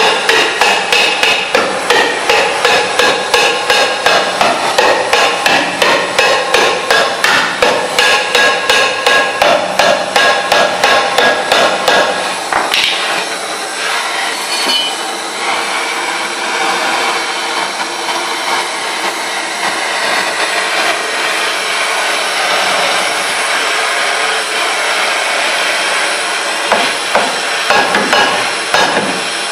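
Quick, regular hammer blows, about three a second, on the seized, rusted brake drum of a 1970 VW Variant. They stop about twelve seconds in and give way to the steady hiss of a small gas torch flame heating the drum to free it, and a few more blows come near the end.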